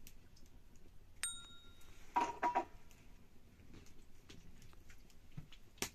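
A metal cooking pot clinks about a second in and rings briefly like a bell, followed by a short clatter of knocks and a sharp knock near the end.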